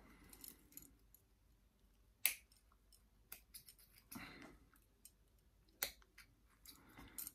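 Pruning snips cutting small branches off a young yew: four sharp snips spread over several seconds, with a few fainter clicks and soft handling noise between.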